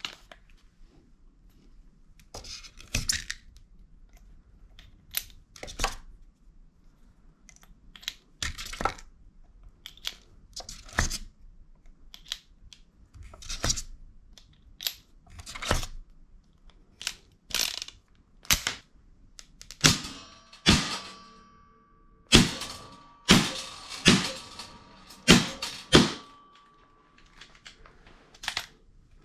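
Sharp metallic clicks and clinks, roughly one a second, as brass shells are pushed into the cylinder of a BB revolver and the gun is handled. In the last third the clicks get louder and each rings briefly, metal on metal.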